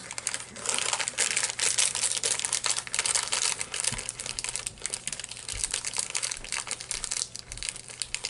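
Snack packaging crinkling and crackling as it is handled, with a few soft low thumps.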